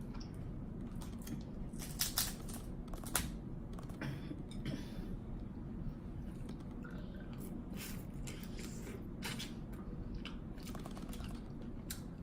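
Crab leg shells being cracked and pulled apart, a scatter of sharp cracks and snaps, with wet smacking of eating between them.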